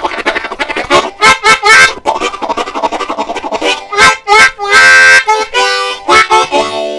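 Diatonic harmonica in G imitating a train: fast rhythmic chugging from quick alternating breaths, then a loud long held chord about five seconds in and another held chord near the end.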